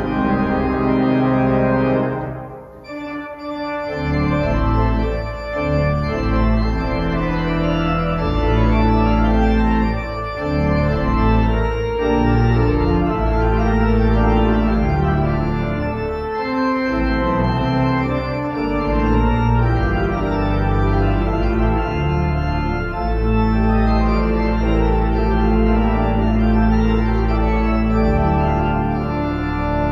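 Church organ playing a chorale prelude on a hymn tune: sustained chords over deep held bass notes, with a short pause between phrases about two and a half seconds in.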